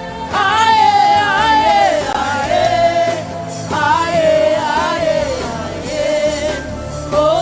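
Gospel worship music: a voice sings long, gliding wordless lines over a steady, sustained low accompaniment.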